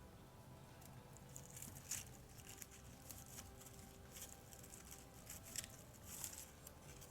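Dried flowers and stems rustling and crackling as they are handled and pushed into a wreath: faint, crisp crackles begin about a second in, with a few louder snaps around two seconds in and near the end.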